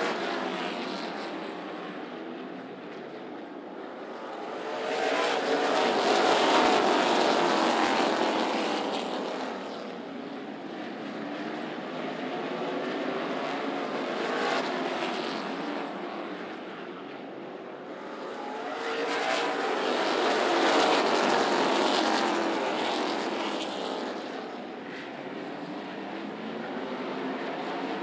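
Pack of NASCAR K&N Pro Series stock cars racing, their V8 engines at full throttle. The sound swells loud as the field passes about six seconds in and again about twenty-one seconds in, with the pitch gliding as the cars go by, and fades between as they run the far side of the track.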